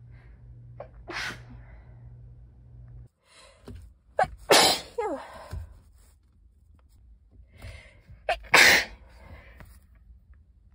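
A person sneezing three times: a smaller sneeze about a second in, then two louder, sharper sneezes around the middle and near the end, the middle one trailing off into a falling voiced sound.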